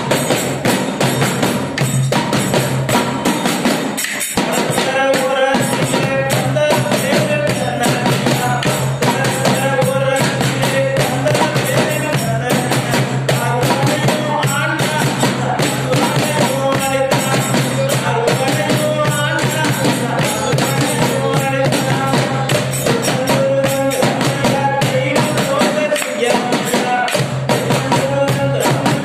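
A man singing a Tamil devotional bhajan through a microphone and loudspeaker, his wavering voice carried over a steady, fast beat of hand percussion.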